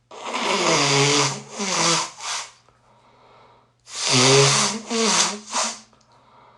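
A person blowing their nose hard into a tissue with loud honking, in two bouts, each a long blast followed by two shorter ones.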